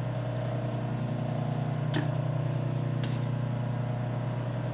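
Industrial sewing machine motor humming steadily, with two sharp clicks about a second apart near the middle.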